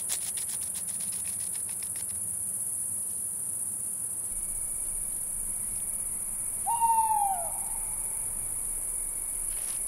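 Crickets chirring in a steady high-pitched chorus. In the first two seconds a fast run of light scratching ticks fades out, a hedgehog scratching at its spines. About seven seconds in, an owl gives a single short falling call.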